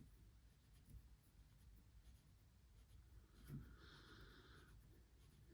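Near silence: a Kawasaki Z1A gearbox shaft turned by hand on a V-block to check it for bend, with a faint knock about three and a half seconds in followed by about a second of soft scratchy rubbing.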